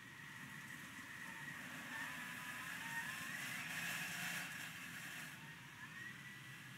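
Thermomix kitchen machine's blender motor whining as its speed dial is turned, the pitch stepping up and down and the sound growing louder a few seconds in, then easing off, while it blends beetroot ketchup to a smooth purée.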